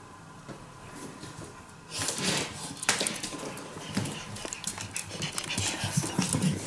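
A raccoon's vocal sounds and scrabbling close to the microphone. It is quiet for about two seconds, then a run of sharp, scratchy noises starts and grows louder toward the end.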